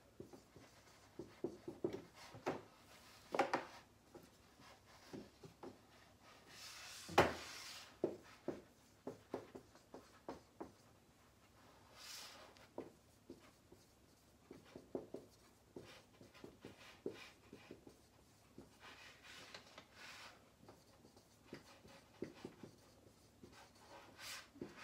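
Faint pen writing: a run of light irregular taps and short scratching strokes, the loudest stroke about seven seconds in.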